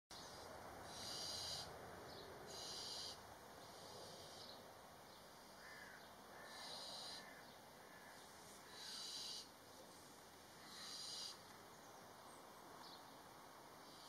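Barn owl chicks making their rasping hissing calls, the 'snoring' begging call of owlets. The hisses come about every two seconds, each one shorter than a second.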